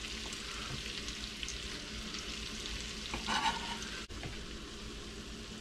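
Smoked sausage, onions and green peppers sizzling steadily in a pot on the stove, with a few light knife chops on a plastic cutting board.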